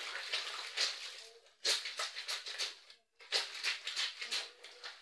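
Wet clothes being scrubbed by hand in a basin of soapy water, fabric rubbed against fabric in quick strokes about three a second, with a short pause about three seconds in.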